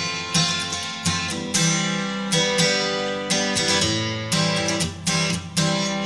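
Background music: acoustic guitar chords plucked in a steady, lively rhythm.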